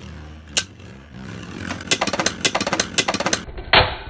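Beyblade Burst tops spinning in a plastic stadium with a steady low whirr, then clashing again and again with sharp plastic clacks that come faster from about a second in. Near the end comes a loud crack as a top bursts apart.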